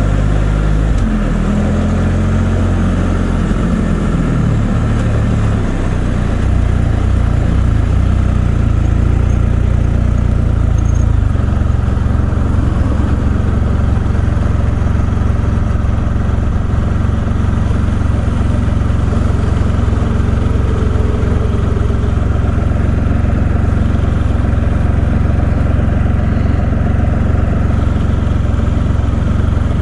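Can-Am Spyder three-wheeled motorcycle's engine heard from the rider's seat, its pitch shifting over the first few seconds and then holding steady for the rest.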